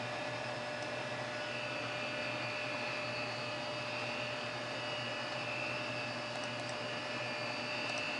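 Conner hard drive in a Macintosh Portable running at speed after spin-up: a steady whir with a faint constant whine over it.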